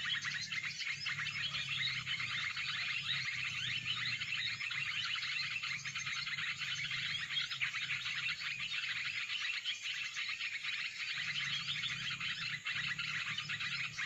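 Dense, unbroken chirping and twittering of many birds over a low steady hum.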